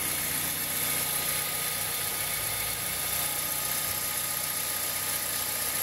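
2003 Toyota Corolla engine idling steadily with no knocks or other noise on top. The cold-start resonance noise it used to make has gone, now that the accessory-belt tensioner has been replaced.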